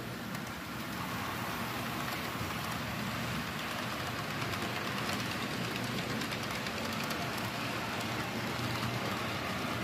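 Model train running along the track: a Rivarossi Hudson-based locomotive, rebuilt as a streamlined Mercury, pulling passenger cars. It makes a steady rolling rush of wheels on rail, with faint clicks through it.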